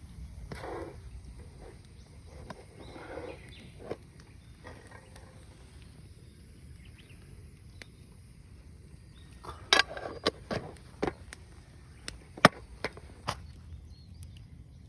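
Outdoor ambience with a steady low rumble, broken in the second half by a series of sharp clicks and knocks, one much louder than the rest.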